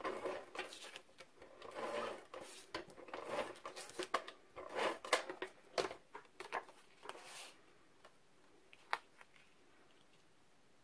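Scotch Advanced Tape Glider (ATG tape gun) dispensing double-sided adhesive tape onto the back of a paper panel: a series of short rattling, whirring strokes for about seven seconds, then a single sharp click a little later.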